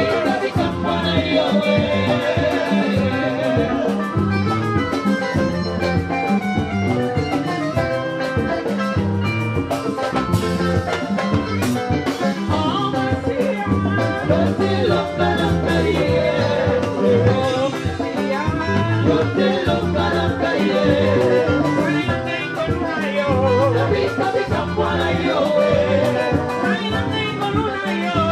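Several women singing together into microphones over a live band with electric guitars, playing a steady beat.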